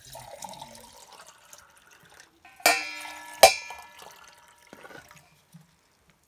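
Metal kitchenware: a spoon scraping through cooked rice in an aluminium pot, then two sharp, ringing metal clanks less than a second apart near the middle.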